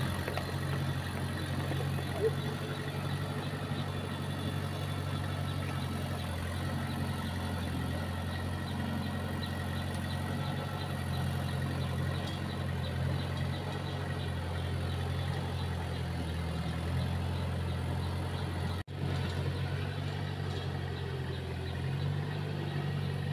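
An engine running steadily at constant speed, a low even drone with no revving; it drops out for an instant about three-quarters of the way through.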